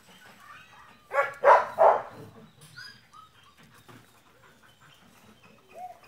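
A dog barks three times in quick succession about a second in.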